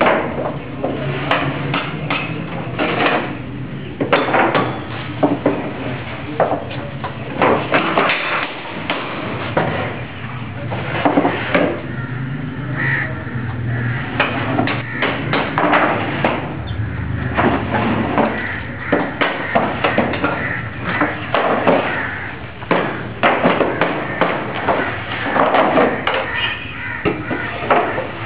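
An electric table saw's motor runs with a steady low hum under many irregular sharp knocks and clatters of boards and mallet blows.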